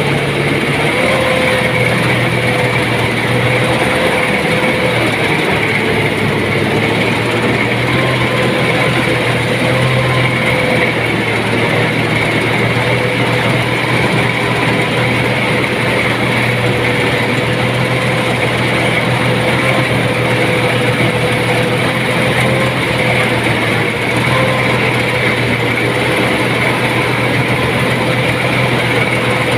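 BIMO rice thresher machine running steadily, a loud even mechanical drone with a held whine that wavers slightly in pitch.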